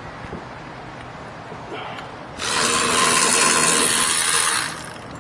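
Cordless electric ratchet with a swivel socket running for about two seconds, starting a couple of seconds in, as it backs out the upper brake caliper bracket bolt.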